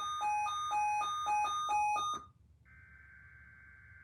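Emergency alert tones: loud alternating high and low beeps over a buzzy data burst, cutting off abruptly about two seconds in. After a brief gap a quieter burst of the SAME header's digital data tones begins, a steady buzzy warble.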